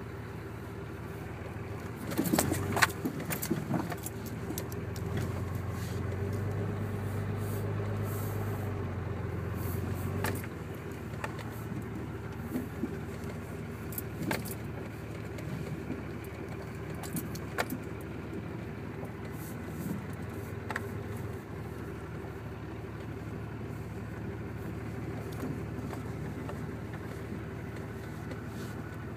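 A car driving slowly along a rutted dirt track: steady engine and road noise with scattered knocks and rattles from the bumps. The knocks are loudest about two to three seconds in.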